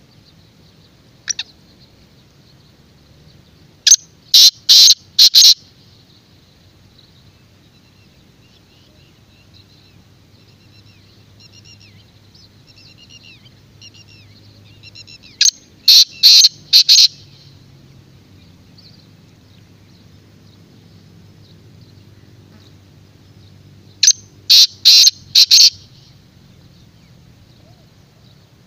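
Caged black francolin calling three times, each call a loud, grating run of four or five sharp notes lasting about a second and a half. Faint twittering of smaller birds is heard between the calls.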